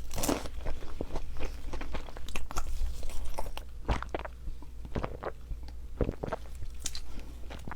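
A person chewing chicken cheese pizza close to the microphone: irregular crunches and wet mouth clicks, several a second.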